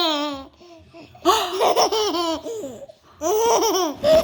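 Baby girl laughing in three high-pitched bouts of giggles.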